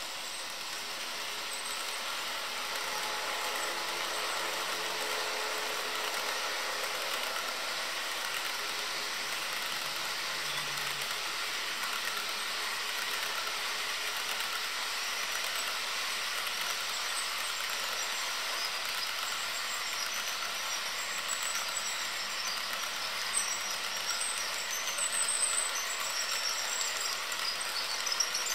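HO scale model container train rolling past on its track: a steady whir of the motor and the cars' wheels, with small clicks and rattles near the end.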